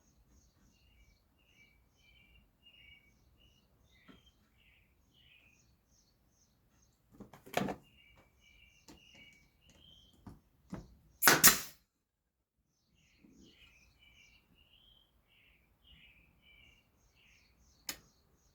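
Small birds chirping in the background, with a few sharp shots from a brad nailer driving nails into the wood. There is a loud shot about seven and a half seconds in, a louder one about four seconds later that is the loudest sound here, and a short crack near the end.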